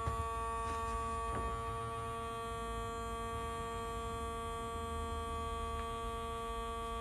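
An electric fresh-water pump running with a steady hum. It is not yet drawing water, so no water reaches the tap: the new system is still full of air, or the pickup is not in the water.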